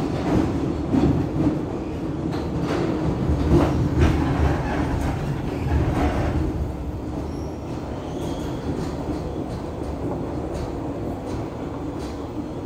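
Kawasaki R62 subway car running on the rails, a steady rumble with a series of clicks over rail joints. After about six seconds the clicking stops and it runs on more smoothly and a little quieter.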